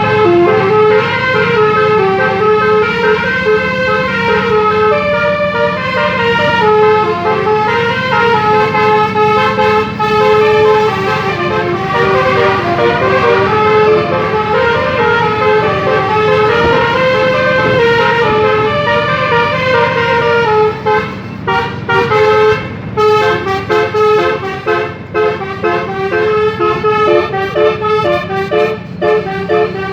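Indonesian 'telolet' multi-tone bus horn playing a quick, stepping melody of notes. About two-thirds of the way through, the notes turn into shorter, choppy blasts.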